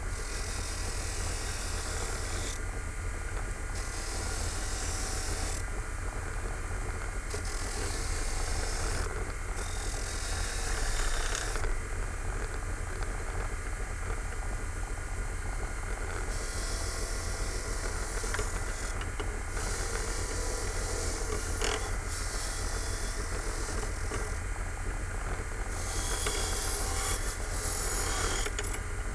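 Bench grinder motor running steadily while the blade of a pair of antique limb clippers is sharpened against the wheel. The grinding comes in about eight passes of two to three seconds each, each a harsh high scrape over the motor hum, with a longer break near the middle.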